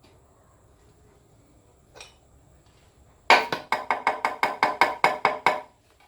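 A rapid run of about a dozen sharp knocks with a slight ring, roughly five or six a second, starting about three seconds in and lasting a little over two seconds.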